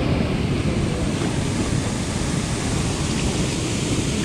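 Steady rushing noise of flowing river water, with wind buffeting the microphone.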